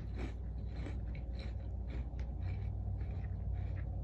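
A person chewing a mouthful of Cap'n Crunch cereal in milk with sliced jalapeños: faint, irregular crunching over a steady low hum.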